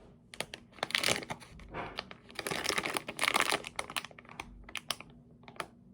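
Plastic toy packaging crinkling as it is handled, in irregular spells of crackling with short pauses between them.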